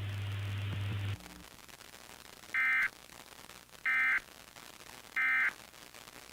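Emergency Alert System end-of-message (EOM) tones: three short, buzzy digital data bursts about a second apart, signalling the end of the alert. Before them, a steady low hum with hiss from the broadcast audio cuts off about a second in.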